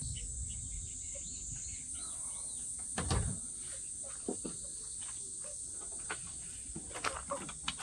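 Steady high-pitched insect chorus, with a single knock about three seconds in and a few light clicks near the end.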